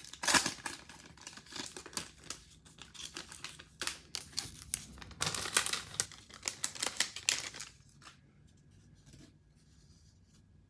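Baseball trading cards and their pack wrapper being handled: a run of rustling, crinkling and sharp clicks as cards are shuffled. It stops about three-quarters of the way through.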